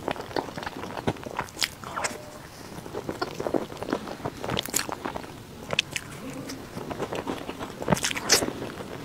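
Close-miked eating: biting into a soft cream-filled pastry and chewing, with many short, irregular mouth clicks.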